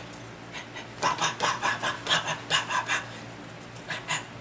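A person laughing in quick, breathy bursts, about six a second for two seconds, with one more short burst near the end.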